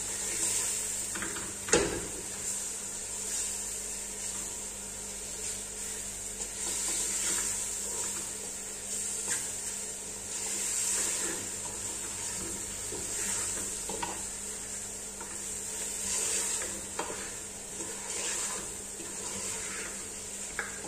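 Chicken pieces sizzling in oil in an aluminium stockpot while a wooden spoon stirs them, scraping and knocking against the pot. The chicken is being sautéed with its spices. The sizzle swells and fades with the stirring, and one sharper knock comes about two seconds in.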